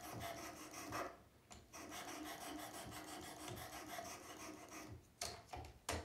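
600-grit diamond sharpening plate rasping along the small blade of a Swiss Army knife in rapid strokes, louder in the first second and then quieter, with a few sharp clicks near the end.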